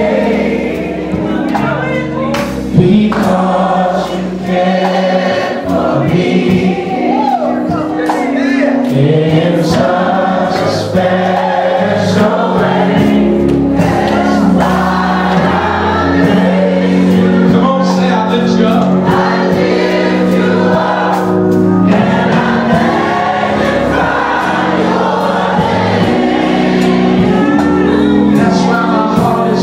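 Gospel choir singing with band accompaniment: held chords under the voices, and a regular beat.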